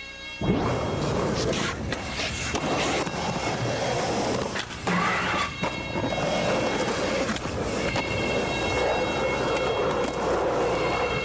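Skateboard wheels rolling over pavement, starting abruptly about half a second in, with several sharp clacks of the board hitting the ground.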